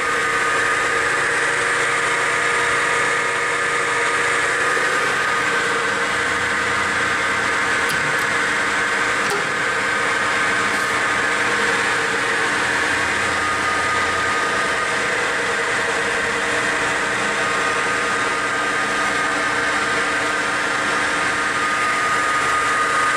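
YCI Supermax LG-1768H engine lathe running under power with a steady mechanical whine from its drive and gearing, even and unchanging throughout.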